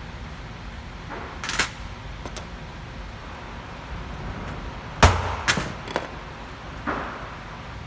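A few sharp taps and clacks of hand layout tools being handled and set down on a hard work surface: one about a second and a half in, then a quick run of three about five seconds in, the first of these the loudest with a dull thump, and a softer one near the end.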